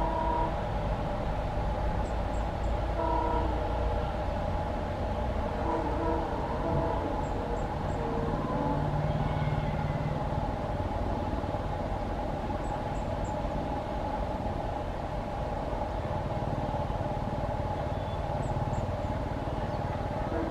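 A train running past with a steady drone and rumble, and several short horn blasts in the first half.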